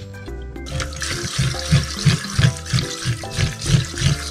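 Water from a kitchen tap running into a stainless steel sink, starting about a second in, as a fish is rinsed. Background music with a steady beat plays throughout.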